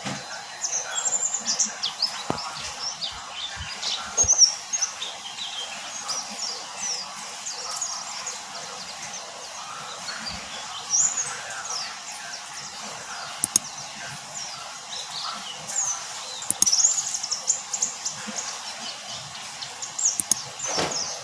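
White-eye (pleci) chirping and twittering in quick, high notes, in several flurries with short pauses between. Near the end a sound sweeps down in pitch.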